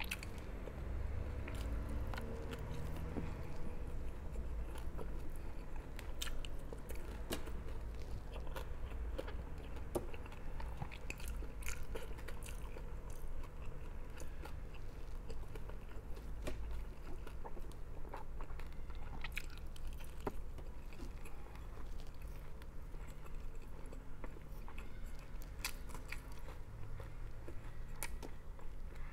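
A person chewing and biting food close to the microphone, with many small wet mouth clicks and light crunches, as she eats rice with crunchy dried fish (tuyo). A steady low hum runs underneath.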